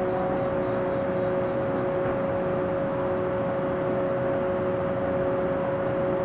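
Stationary JR 475-series electric train standing at the platform, its onboard equipment giving a steady hum with a constant mid-pitched whine.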